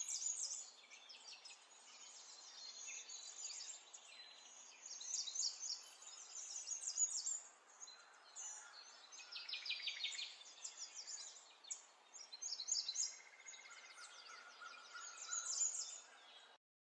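Several songbirds chirping and singing together in quick, high chirps and trills over a faint hiss, cutting off abruptly just before the end.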